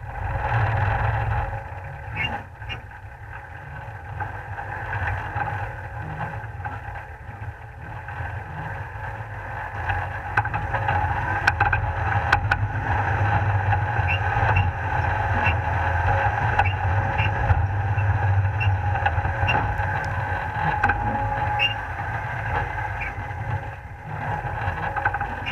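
Off-road 4x4's engine running under load, heard close from a camera mounted on the bonnet, with a steady low rumble and scattered knocks and clatters as the vehicle crawls over a rough forest track.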